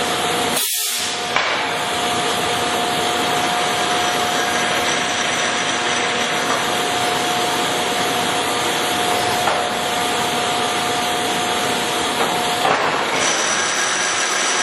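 Monarch 20CM heavy-duty engine lathe running under its 25 hp main drive motor, the spindle turning with a steady mechanical hum and a constant whine. Near the end the whine changes to a higher tone.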